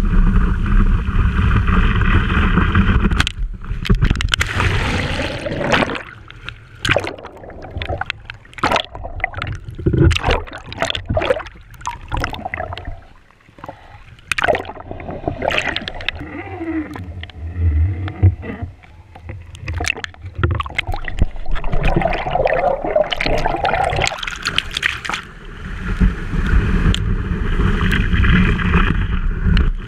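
Water rushing against a camera mounted on the front of a wakeboard as the board skims the lake under tow. A few seconds in the steady rush breaks up into irregular splashes and gurgles while the board sits low in the water, and the steady rush comes back near the end as the board is towed across the surface again.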